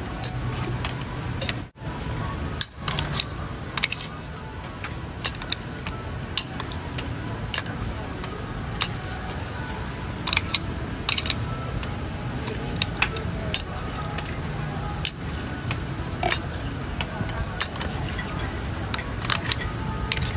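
Metal hand-lever citrus press clacking and clinking at irregular moments as oranges are squeezed, over a steady background hubbub of voices.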